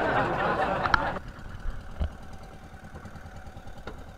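Motorized bangka's engine just started and running loudly, then dropping sharply to a quieter steady idle about a second in, with a few light knocks.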